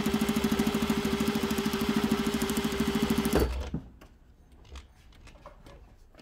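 Juki DDL-8700H industrial lockstitch sewing machine running at a steady speed with a fast, even stitching rhythm over a constant motor hum, sewing through a thick stack of soft fabric. It stops suddenly a little over three seconds in with a short thump, leaving only a few faint clicks.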